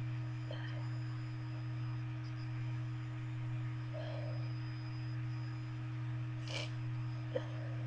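Steady low electrical hum with a fainter higher tone above it, unchanged throughout. About six and a half seconds in comes one short sniff, and a faint click follows just after.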